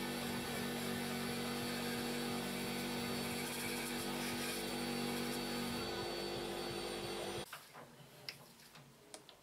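Bench grinder fitted with a satin (abrasive) wheel running with a steady hum and hiss as a rusted steel cover plate is worked against it to strip rust and paint. About seven and a half seconds in it cuts off suddenly to quiet, with a few light knocks of hands handling the lathe.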